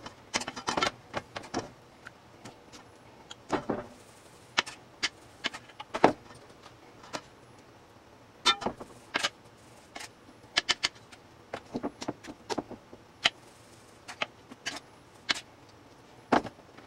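Metal kitchen tongs and stainless steel mixing bowls clicking and clinking in an irregular patter of short, sharp knocks while steaks are dipped in buttermilk and dredged in flour.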